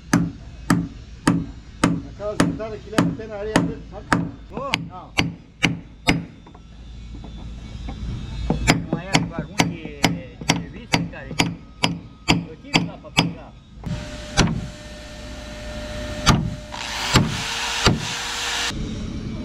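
Hammer blows on wood in a steady series, about two a second. They pause briefly, then resume a little faster. Over the last few seconds a steady noise with a hum joins in under a few more blows.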